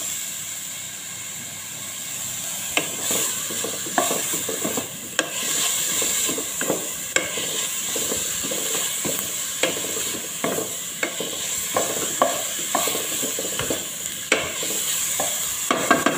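Wooden spatula stirring and scraping peas and onions in a pot, with irregular knocks against the pot, over a steady sizzle of the vegetables frying in oil.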